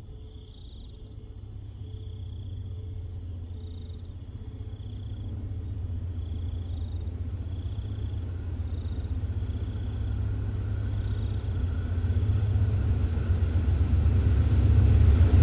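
Diesel locomotive approaching a station platform: a low engine and track rumble that grows steadily louder. Insects trill faintly and steadily in the background.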